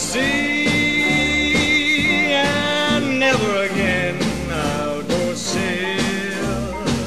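Background music: a band tune, opening with a long held note over bass and a steady beat, then moving into a melody line.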